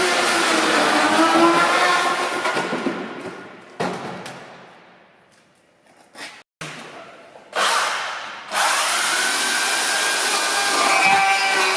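Chainsaw running steadily, then dying away to almost nothing about four to six seconds in, before starting up again abruptly and running on.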